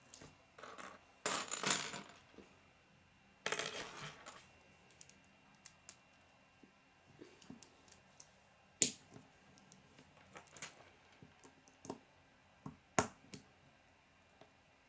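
Plastic K'nex pieces being handled and sorted: two short bursts of clattering in the first few seconds, then scattered light clicks and taps, with a sharp click about nine seconds in and another about thirteen seconds in.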